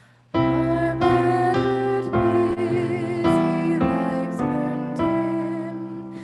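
Music led by piano, playing sustained chords that change about every half second. It comes in sharply after a brief pause at the start.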